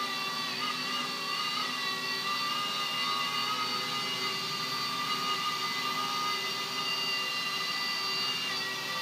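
RC Era A61 mini Airwolf helicopter in flight: a steady, high-pitched whine from its motors and rotors, holding nearly the same pitch throughout.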